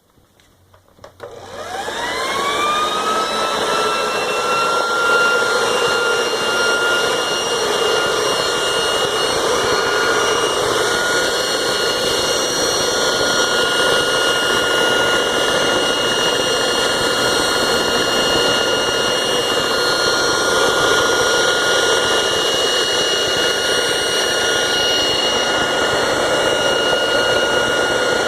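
Walita 400T floor polisher and vacuum cleaner's electric motor switched on about a second in, its whine rising as it spins up over a couple of seconds, then running steadily at full speed with a high whine over a rush of air.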